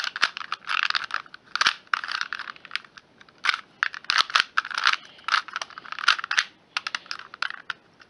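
2x2 Rubik's cube being turned quickly by hand through a move sequence: a fast, irregular run of plastic clicks and clacks as the layers snap round, stopping near the end.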